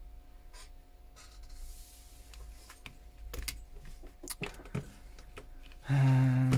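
Light, scattered clicks and taps of small repair tools and parts being handled on an opened iPhone. About six seconds in, a loud steady low hum begins.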